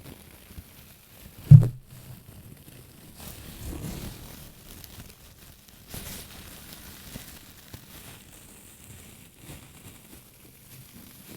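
Hands handling an object close to the microphone: soft handling noise, one loud low thump about a second and a half in, and a longer stretch of handling noise around four seconds in.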